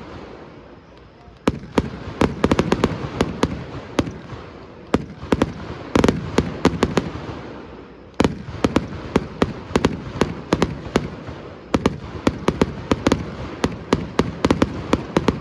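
Fireworks display: aerial shells bursting in repeated volleys, sharp bangs coming in quick clusters, several a second, each group trailing off in a rumbling echo. The bursts come thicker and faster in the second half.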